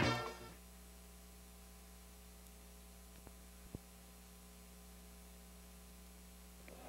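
Music fading out within the first half second, then a faint, steady electrical mains hum with little else, broken by two faint clicks about halfway through.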